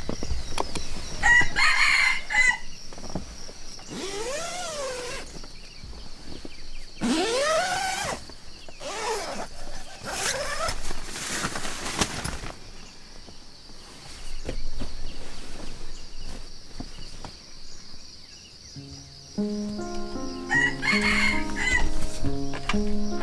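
A rooster crowing: long crows that rise and then fall in pitch, one about four seconds in and a stronger one about three seconds later, then a fainter one. Soft music comes in near the end.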